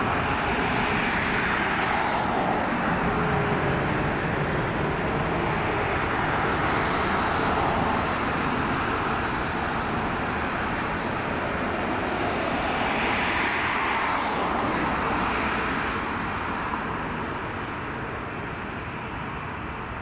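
Steady rushing engine noise, easing off over the last few seconds.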